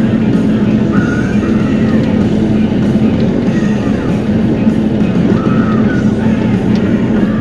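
Rock background music with guitar over the steady running of a Bobcat E42 mini excavator's diesel engine.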